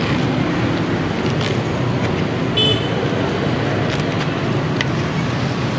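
Steady road traffic noise from passing vehicles, with a brief high-pitched beep about two and a half seconds in.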